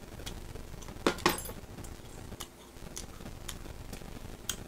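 A person eating: a loud short smack about a second in, then a few faint light clicks.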